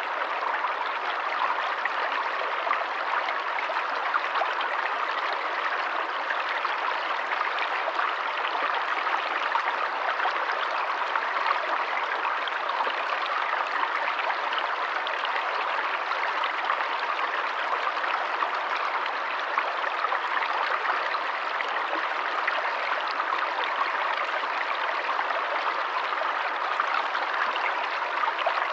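Forest stream running steadily: a continuous babble of flowing water with no breaks.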